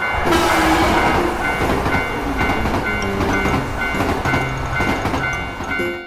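A train rushing past a level crossing while the crossing's warning bell keeps ringing its steady kan-kan beat, about three dings a second.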